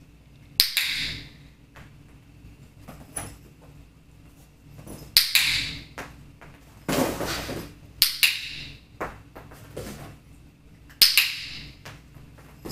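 Handheld dog-training clicker clicking four times, a few seconds apart, each a sharp click with a short ring, marking the puppy for lying down. A longer, duller rustling sound comes just before the third click.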